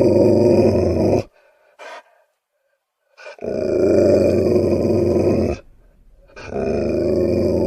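Wolf growling: long, low, rough growls in three stretches, broken by two short pauses, about a second in and again about five and a half seconds in.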